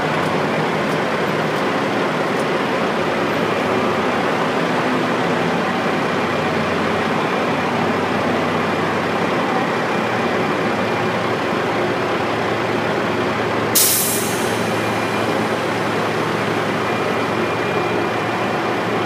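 Liebherr T 284 mining truck's diesel engine running steadily with a low hum. About fourteen seconds in there is one short, sharp hiss of released air, like an air brake.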